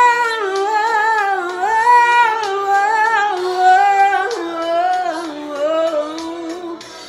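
A woman singing without words in a high voice, in long runs that slide up and down in pitch with no break.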